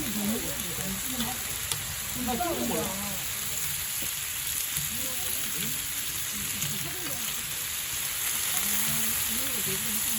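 Pork belly sizzling on a hot iron plate: a steady frying hiss, with faint voices talking underneath.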